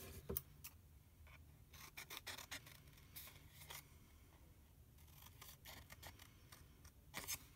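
Scissors snipping short slots into thin cereal-box cardboard: faint, scattered snips, a few of them close together near the end.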